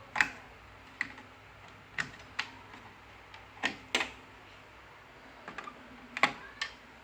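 A dozen or so irregular sharp clicks and knocks of parts being handled as an LCD TV is taken apart, the loudest near the start and about six seconds in.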